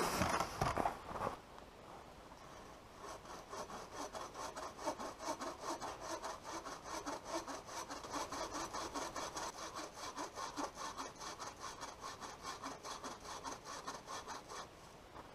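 Bow saw cutting through wood, steady back-and-forth strokes at two to three a second that stop near the end. In the first second or so there is louder rustling and knocking close by.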